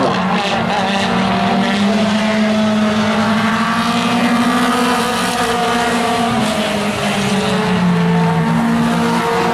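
Mini stock race cars' four-cylinder engines running hard at high revs as a pack laps a short oval, a steady loud drone whose pitch wavers a little as the cars go through the turns.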